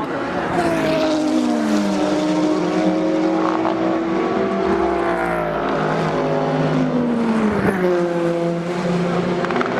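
Racing cars' engines passing at speed, several overlapping. The engine note drops in pitch as a car goes by, once early and again near the end, then runs on steadily as the next cars pull away.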